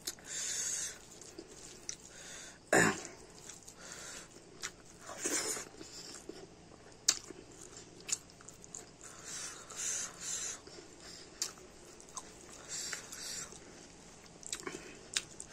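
Close-up chewing and lip-smacking of a person eating rice and curry by hand, in short wet bursts with scattered clicks; the loudest is a sharp click a little under three seconds in.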